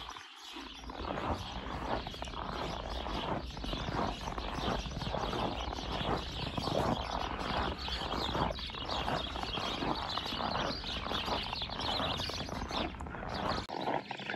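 Footsteps crunching on packed snow, an irregular crackling that keeps going with each stride.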